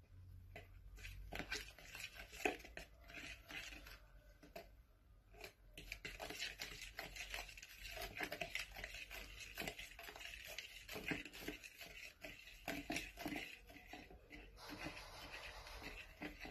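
A metal utensil beating butter, sugar and egg in a plastic mixing bowl: faint, irregular clicks and scrapes against the bowl's sides as the mixture is stirred.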